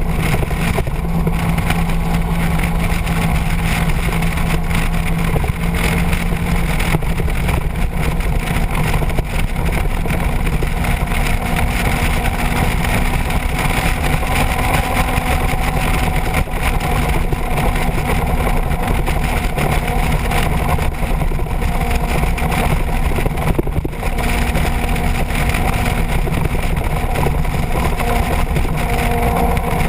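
Motorcycle engine running at a steady cruising speed, with wind noise on the microphone. The sound stays even throughout.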